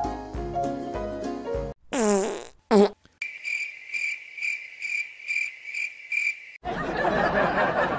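Background music cuts off, then two wet fart sounds, the second short and the loudest. A cricket-chirp sound effect follows, pulsing about twice a second for some three seconds, and near the end a dense rush of noise comes in.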